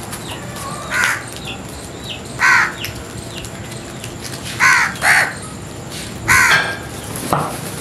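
House crows cawing: about six harsh caws at irregular intervals from birds in a feeding flock.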